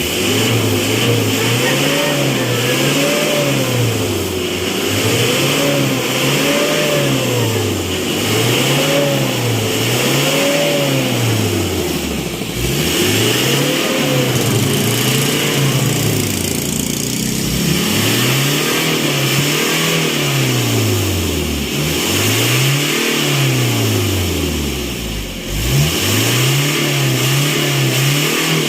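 Diesel engine revved up and down over and over, the pitch rising and falling about once every second and a half, easing off briefly about halfway through. The blipping works a freshly added engine additive through the engine.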